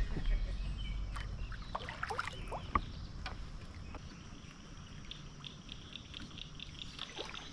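Small knocks and clicks of gear being handled aboard a fishing kayak on the water, over a low steady hiss, then a faint, even ticking of about four a second in the second half.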